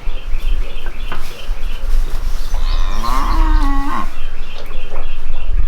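A cow mooing once: one call that rises in pitch and then holds for about a second and a half before cutting off.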